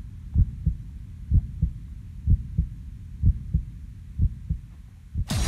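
Heartbeat sound effect: low double thumps, one pair about every second. Near the end a sudden loud whoosh cuts in as the music begins.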